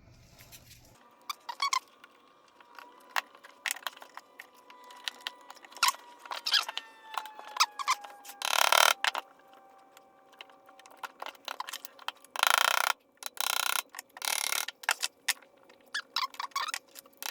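Snap ring being worked into its groove on a Toyota AE86 steering column shaft: scattered small metal clicks and scraping, with louder rubbing scrapes about nine seconds in and again near the end.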